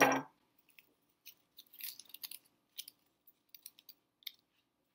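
Scattered light clicks and rustling from small items being handled, with a brief crinkle about two seconds in.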